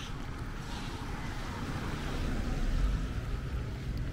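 Rain falling on a city street as an even hiss, over a low rumble that grows louder about three seconds in.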